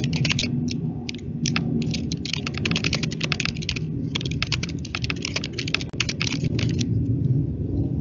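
Typing on a computer keyboard: quick, irregular keystrokes with a short pause about four seconds in and fewer keystrokes near the end, over a low steady hum.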